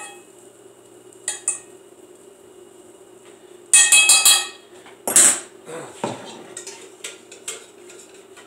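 A metal utensil scraping and clinking against a cast iron skillet as melted butter is spread around the pan. A loud run of ringing metallic clinks comes about four seconds in, and a single louder clank a second later, with lighter taps after.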